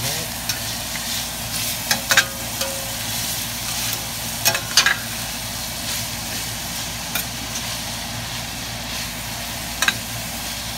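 Ground beef, diced onion and carrot sizzling steadily as they brown in a stainless steel pan, with a spatula scraping and clicking against the pan a few times as it stirs and breaks up the meat.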